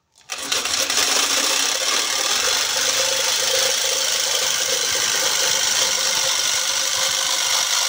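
Electric jigsaw switched on and cutting through particle board, its reciprocating blade running with a steady rattling buzz.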